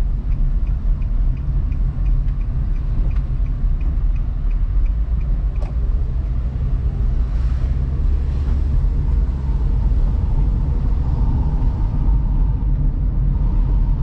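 Car driving along a road: steady engine and tyre noise, mostly deep. A light regular ticking, about two or three a second, runs through the first five or so seconds and then stops.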